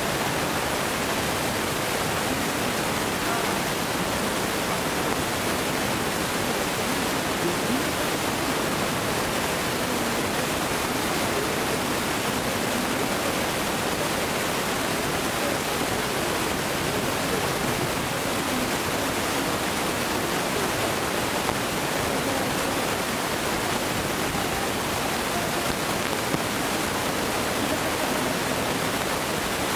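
Steady, even hiss that holds level throughout, with no fireworks bursts or bangs.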